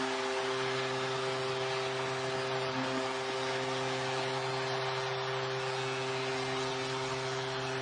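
Arena goal horn sounding one long steady low tone over a cheering crowd, signalling a home-team goal.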